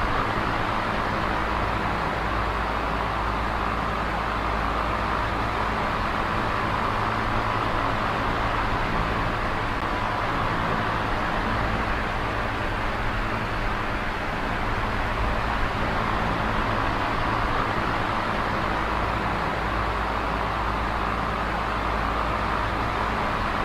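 Small electric oscillating fan running steadily: an even rush of air with a low motor hum underneath.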